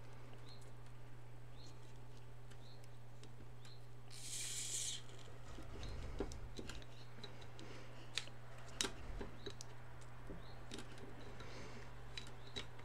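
Plastic toothbrush handle clicking and scraping against a beer bottle's crown cap as it is levered at to pry the cap off, with scattered sharp clicks and a short rustle about four seconds in, over a steady low hum.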